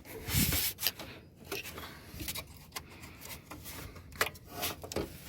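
Plastic scraping and a series of sharp clicks and knocks as the new cooling fan assembly's shroud is pushed down into its mounts on the radiator. There is a short scrape about half a second in, then scattered knocks.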